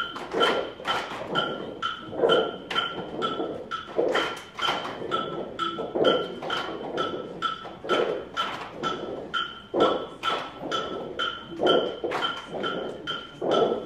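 A group of children performing a cup rhythm routine in unison: plastic cups knocked and slapped on a carpeted floor, mixed with hand claps. The pattern repeats quickly, about three to four strokes a second, with a heavier beat about once a second.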